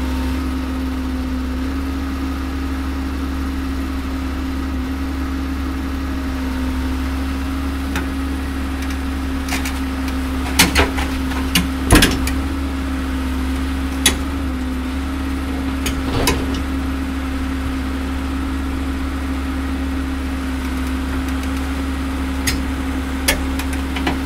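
Heavy diesel engine idling steadily, with a few sharp knocks, most of them about halfway through.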